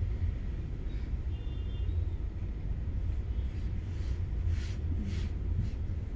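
Steady low background rumble, with a few brief soft rustles of cloth being folded by hand in the second half.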